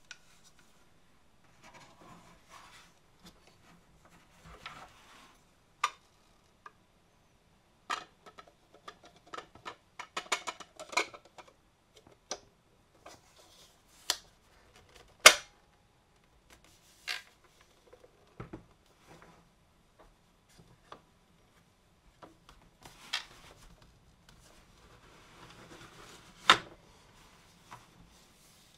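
Hands handling the plastic parts of a KitchenAid shave ice attachment on a tabletop: scattered sharp clicks and knocks of plastic pieces being set down and fitted, between spells of soft rustling. The loudest knock comes about halfway through.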